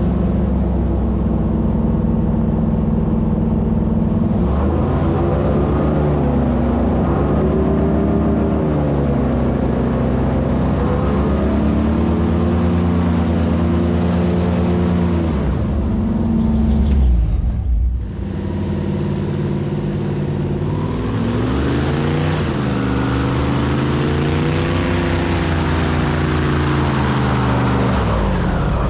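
A 450-horsepower airboat engine and its caged propeller are running under way. The pitch rises and falls repeatedly as the throttle is opened and eased, and it drops out briefly a little past halfway through.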